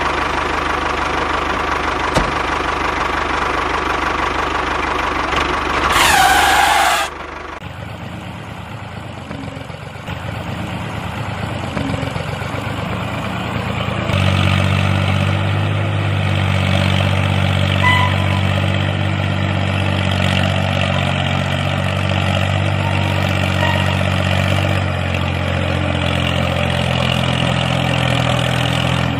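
Tractor engine running, its note changing a couple of times. A brief sweeping tone comes about six seconds in, and the engine is louder and steadier from about fourteen seconds on.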